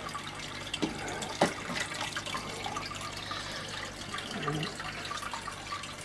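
Marine aquarium's circulating water running steadily, a constant trickling and bubbling hiss, with two small clicks about a second and a second and a half in.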